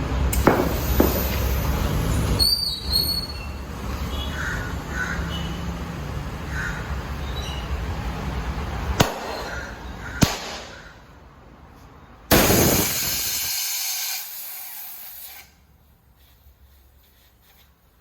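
Tyre-shop work noise: a few sharp knocks over a steady background, then a loud hiss about twelve seconds in that lasts about three seconds and stops suddenly.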